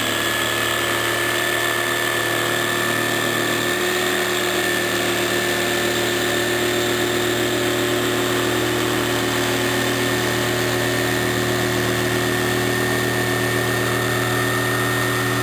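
Black & Decker jigsaw running at a steady speed, its blade cutting along a straight line through a wooden board.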